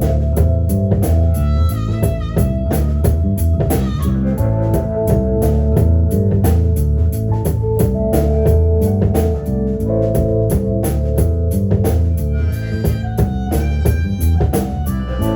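Live blues-rock band playing an instrumental passage: electric guitar over a steady drum-kit beat and bass line, with short high guitar runs about two seconds in and again near the end.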